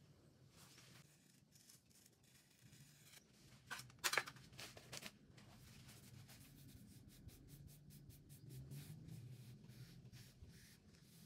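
Faint scraping and rubbing as a plastic cake scraper smooths buttercream around the sides of a cake on a turning metal turntable, with a brief sharp knock about four seconds in and a run of light ticks near the end.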